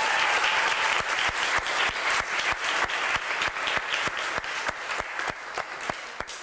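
Small audience applauding, the dense clapping thinning into separate distinct claps and fading out near the end.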